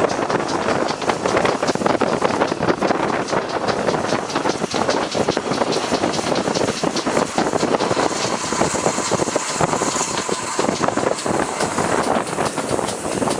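A train running on the line: a steady, loud rushing noise full of rapid clatter.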